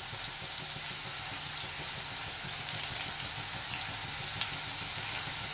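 Crushed shallots and curry leaves frying in hot coconut oil in a kadai: a steady sizzle with a few faint crackles.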